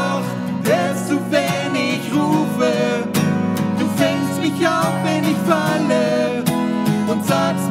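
Acoustic guitar strummed in a steady rhythm, with a man and a woman singing a melody over it.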